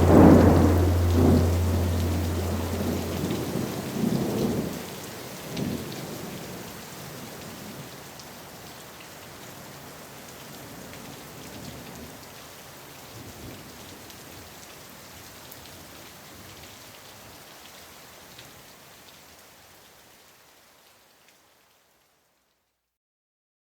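Recorded thunderstorm: steady rain with rolling thunder, loudest in the first six seconds with rumbles about four and five and a half seconds in, then the rain slowly fades out to nothing.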